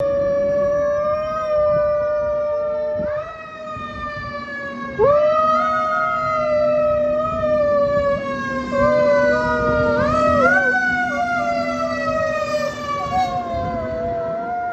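Fire truck siren wailing, its pitch sliding slowly down and then sweeping sharply back up three times. A dog howls along with it, a long wavering howl.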